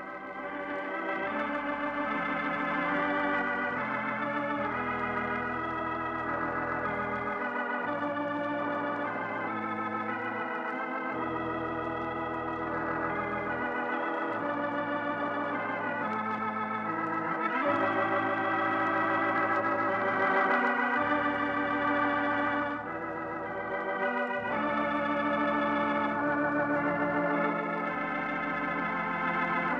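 Organ playing the program's closing music: sustained chords with vibrato over low pedal notes that change every few seconds.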